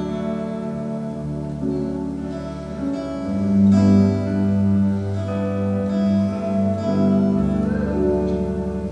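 Slow instrumental worship music: strummed acoustic guitar over held keyboard chords, the chords changing every second or two.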